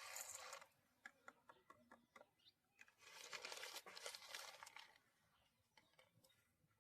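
Faint rustling and crinkling handling noise with scattered small clicks: a short burst at the start and a longer stretch a few seconds in.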